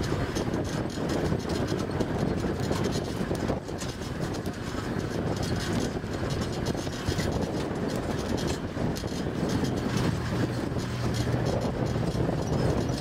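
Safari vehicle driving along a rough bush track: a steady engine drone with constant small rattles and knocks from the bodywork.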